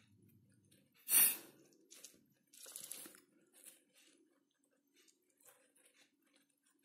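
Short crunchy rustling bursts from baby hamsters moving through and nibbling loose seed mix in a clear bowl; the loudest comes about a second in, another about three seconds in, then a few faint clicks.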